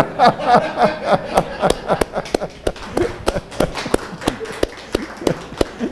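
Two hands clapping in an irregular run of sharp claps, with a man's laughter mixed in during the first second or two.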